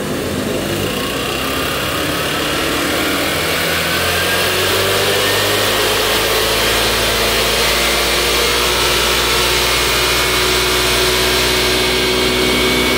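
Kymco Agility 125 scooter's single-cylinder four-stroke engine revved up from idle, rising in pitch over the first few seconds and then held steady at high revs.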